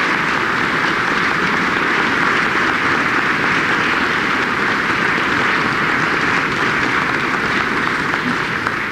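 Sustained, steady applause from a large audience.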